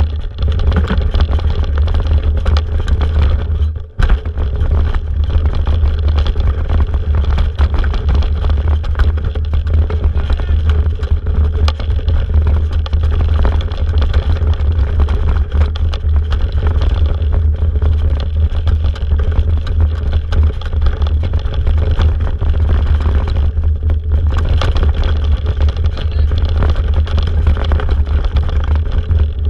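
Wind buffeting the microphone of a mountain bike's camera on a fast ride down a dirt trail, with the bike and tyres clattering over rough ground. The noise drops out briefly about four seconds in.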